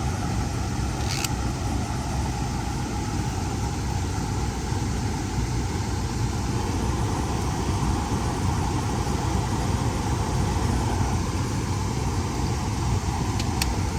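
Air handler's blower running steadily, with its 3 kW electric heat strips switched on through a newly fitted sequencer, blowing heated air. Two faint ticks sound, about a second in and near the end.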